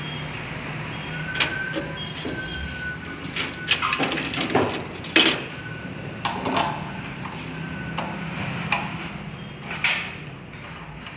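Metal clicks and knocks as the parts of a Bosch VE diesel injection pump's boost diaphragm assembly are handled and fitted by hand, with the loudest knock about five seconds in, over a steady low hum.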